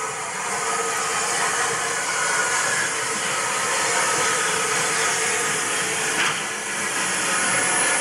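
Steady hiss of steam from the rebuilt Merchant Navy class Pacific locomotive 35027 Port Line as it moves slowly past, growing louder over the first second. One short click about six seconds in.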